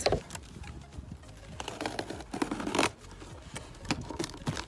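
Handling noises: small knocks and scrapes of a wooden treat holder and its wooden carrots being handled, then rustling and scraping of a cardboard box being picked up, loudest about two and a half seconds in.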